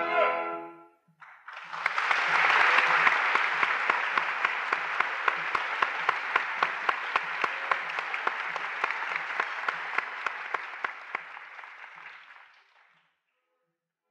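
The last held note of the aria ends just at the start. After about a second of quiet, a concert audience breaks into applause, with one clapper's sharp, steady claps standing out about three times a second. The applause fades out near the end.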